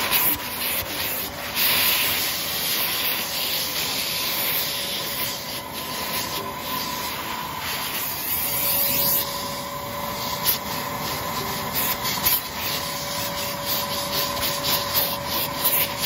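Armor All vacuum cleaner running with a steady whine while its small brush nozzle scrubs and rubs across fabric car-seat upholstery in uneven strokes.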